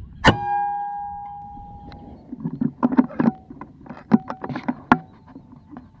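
Air-rifle shot: a sharp crack with a metallic ring that fades over about two seconds. It is followed by a rapid flurry of flapping and splashing from a hit whistling duck in the water, and another sharp click near the end.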